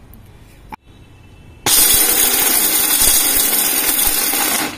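Usha mixer grinder motor running with almonds in its small steel jar, coarsely crushing them. It starts about a third of the way in, runs for about three seconds and stops shortly before the end.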